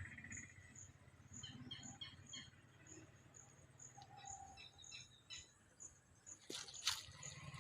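Faint, repeated short bird chirps over a low background hum, with a few sharp clicks near the end.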